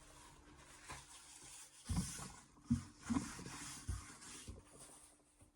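Handling noise on a workbench: a few soft knocks, about five in a few seconds, over a light rustling hiss.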